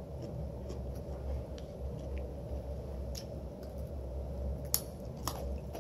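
A person chewing food close to the microphone, with scattered faint mouth clicks over a steady low hum, and two sharper clicks near the end.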